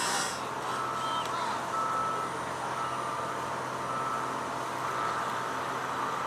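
Backup alarm on construction equipment, beeping about once a second with a steady mid-pitched tone, over a background of outdoor hum.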